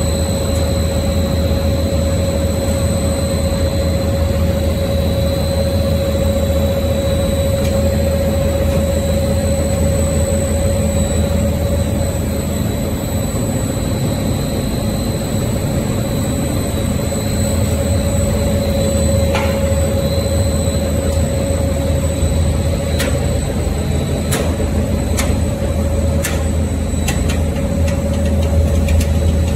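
Plant-protein food extruder running: a steady machine hum with a steady whine, and several sharp clicks in the last few seconds.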